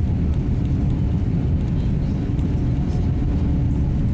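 Cabin noise of a Boeing 787 rolling along the runway: a steady, loud, low rumble from the jet engines and the wheels on the runway.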